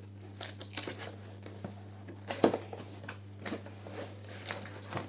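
Rustling, scraping and clicking of packaging and a keyboard being handled during unboxing, with one sharper knock about two and a half seconds in, over a steady low hum.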